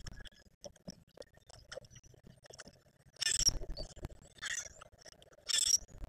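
Birds feeding at seed feeders: scattered clicks and clinks of beaks and claws on the feeders, with three short louder scraping rattles in the second half.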